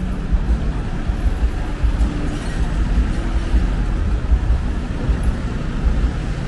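City street traffic noise, with a steady low rumble of vehicle engines running close by.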